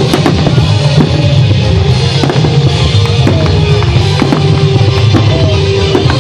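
Fireworks going off in a dense run of bangs and crackles over loud music with a heavy bass.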